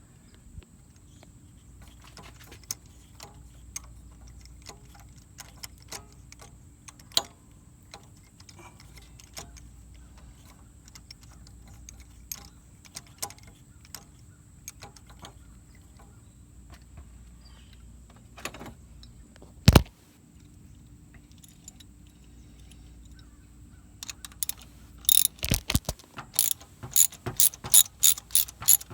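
Scattered light clicks and taps of tools being handled, with one sharp knock about two-thirds of the way through. Near the end a socket ratchet starts clicking in a quick steady run, about four clicks a second, as a new spark plug is threaded into the engine of a 1998 Ford Escort.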